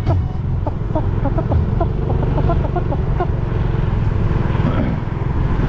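Honda XRM 125 underbone motorcycle's single-cylinder four-stroke engine running steadily at road speed, with road and traffic noise.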